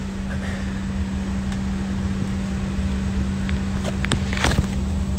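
Steady airliner cabin drone: a constant low hum and rumble that does not change, with a few faint clicks about four seconds in.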